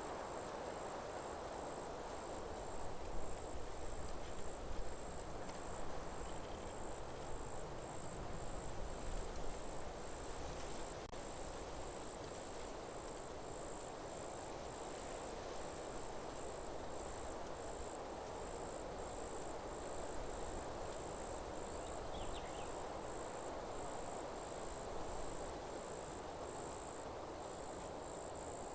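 Crickets chirping steadily in a high, rapidly pulsing trill over a low, even rushing background of forest ambience.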